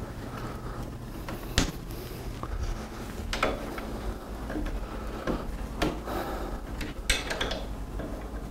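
Hand tool clicking and knocking on the metal sign rack while its loose bolts are tightened: a few sharp separate clicks and clanks, the loudest about one and a half seconds in, and a quick run of them near the end.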